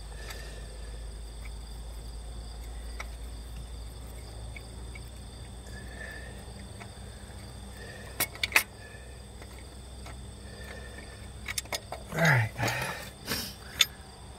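Metal clicks and knocks of the serpentine belt tensioner bracket and pulley being worked loose and pulled out of the engine bay: two sharp clicks about eight seconds in, then a cluster of knocks and scrapes near the end. Faint insects chirp in the background.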